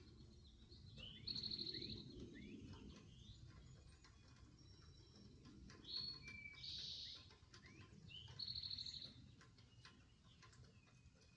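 Faint birdsong: a short phrase of trilled notes and quick downward-sliding whistles, repeated about five seconds later, over a faint low background rumble.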